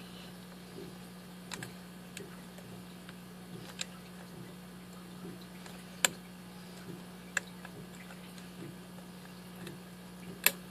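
Small sharp metallic clicks of a lock pick and tension wrench working the spool pins of a Master Lock six-pin safety lockout padlock, a handful of irregular clicks with the loudest about six seconds in and another near the end, over a steady low hum.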